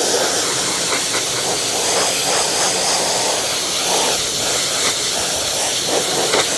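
Pressure washer spray gun with a green-tip nozzle blasting a jet of water onto a car's side mirror and door window: a loud, steady hiss of spray. It is rinsing dish soap off the dirty paint.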